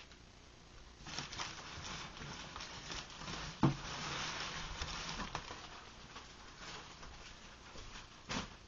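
Plastic air-pillow packing rustling as it is handled and pulled out of a cardboard box, with many small clicks, a sharp knock about three and a half seconds in that is the loudest sound, and another click near the end.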